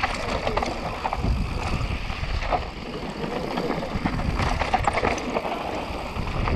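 Mountain bike descending a rough, dusty dirt trail at speed, heard from a camera mounted on the bike: wind buffeting the microphone over a constant rattle and clatter of the bike and its tyres on loose dirt and stones.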